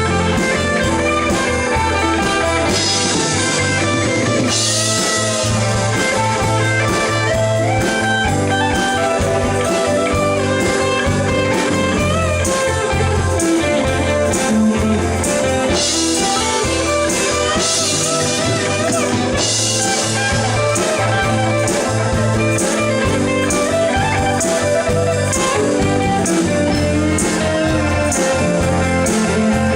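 Rock music: a lead guitar playing wavering, bent notes over a steady bass line and drums with cymbals.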